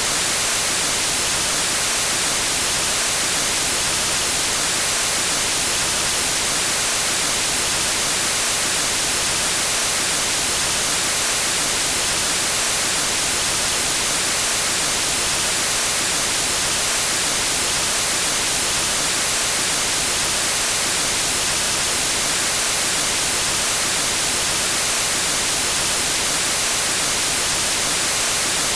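Steady hiss of TV static white noise, even and unchanging, brightest in the high treble.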